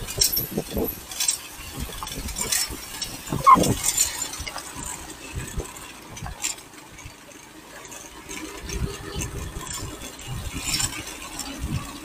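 Motorcycle ridden over a bumpy dirt track, the bike and its camera mount rattling and clinking irregularly over a low running rumble. A short call that bends in pitch sounds about three and a half seconds in.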